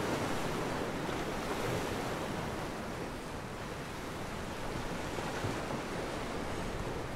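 Steady wash of Gulf of Mexico surf on the beach, with no single loud event.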